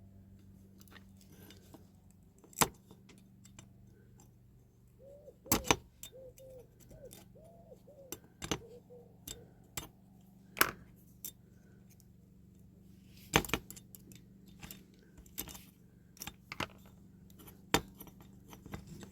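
Small metal tools clicking and tapping against a diecast toy model while old string is worked out of it: irregular sharp clicks, a few short squeaks through the middle, over a low steady hum.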